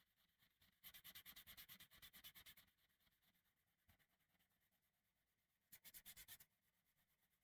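Faint, fast back-and-forth rubbing strokes like hand sanding or scrubbing, in two bouts: one starting about a second in and lasting nearly two seconds, a shorter one near the end.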